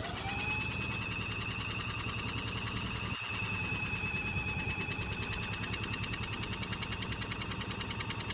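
Small lawn mower engine that has just caught, its pitch rising for a moment and then running steadily at high speed, with a brief stumble about three seconds in.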